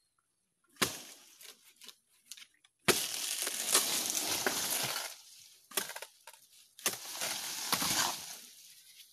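Coconut palm fronds being hacked off with a bolo and crashing down: a sharp knock about a second in, then about two seconds of loud crackling and rustling of dry palm leaves, and another shorter burst of rustling near the end.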